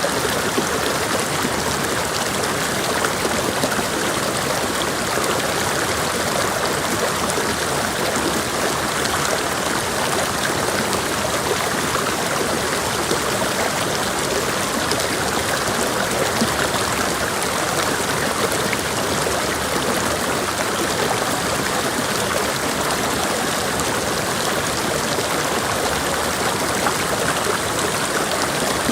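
Creek water rushing and splashing over rocks, a steady, even flow with no change.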